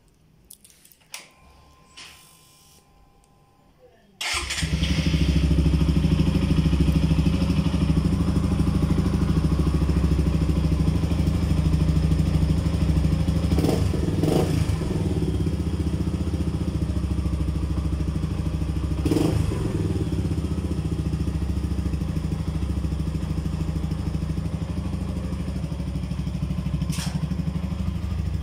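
Suzuki Gixxer SF 155's single-cylinder engine being started: a few faint clicks, then it catches suddenly about four seconds in and settles into a steady idle, with a few short knocks over it midway.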